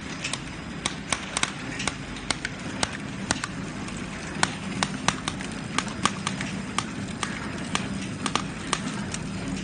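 Automatic flow-wrap packing machine running as it wraps wooden spoons in plastic film. A steady motor hum carries a quick, slightly uneven series of sharp mechanical clacks, about two or three a second.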